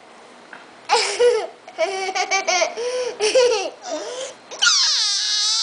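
A toddler laughing in short, high-pitched bursts, then letting out one long, high-pitched squeal near the end.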